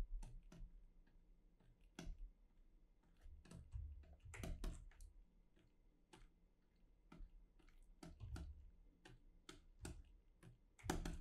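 Faint, irregular clicking from a computer mouse and keyboard, with a few soft low thumps in between.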